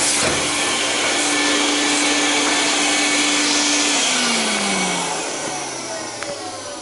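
Vacuum cleaner running steadily with a constant whine, then switched off about four seconds in, its motor winding down with falling pitch and fading suction noise.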